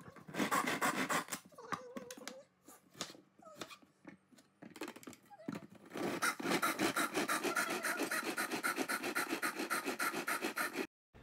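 Manual push-down plunger chopper, a plastic jar, being pumped by hand to chop red onion. Its blades clack in a rapid, steady rhythm of strokes, in a short run near the start and a longer run over the last five seconds that stops just before the end.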